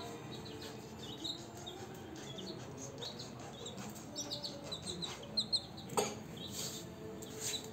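Newly hatched chicks peeping over and over in short, high chirps, with a sharp tap or two about six seconds in.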